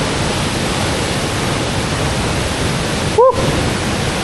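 Waterfall rushing, a loud steady hiss of falling water. About three seconds in, a brief short voice call cuts through it.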